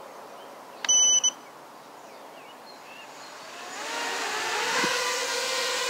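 A short electronic beep about a second in, then the FPV mini quad's brushless motors spinning up from about three and a half seconds, a whine whose pitch glides up and down with the throttle.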